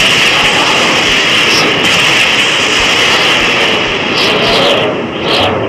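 Heavy rain storm sound effect: a steady, loud hiss of rain, dipping briefly near the end.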